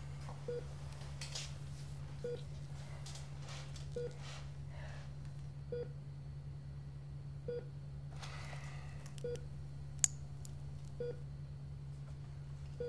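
Short electronic beep repeating evenly about every second and three-quarters, eight times, over a steady low hum. One sharp click about ten seconds in.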